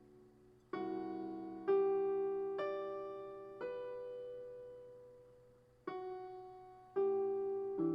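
Solo piano playing slowly: single notes and chords struck about once a second, each left to ring and fade, with a longer pause of about two seconds in the middle.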